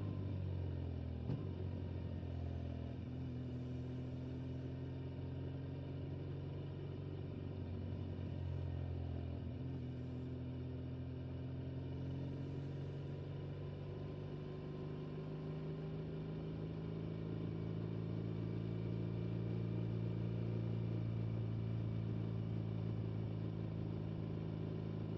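Motorcycle engine running at motorway cruising speed, its pitch shifting about a second in and again around nine seconds in, and a little louder near the end.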